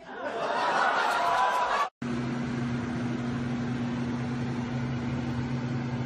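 A noisy wash of sound that cuts off abruptly about two seconds in, followed by a steady low hum with a hiss underneath.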